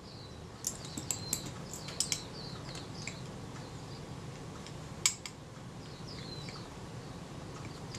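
Small screwdriver scraping and clicking against seized screws in the metal body of a Kodak Retina II camera, with a few sharp clicks (a cluster about a second in, another near two seconds, one just after five seconds). The screws will not turn.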